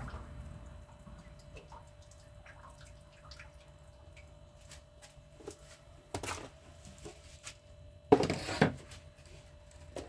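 Faint, irregular crackling of a wood fire burning under a large pan. About six seconds in comes a short, louder knock, and a little after eight seconds a louder clatter lasting about half a second.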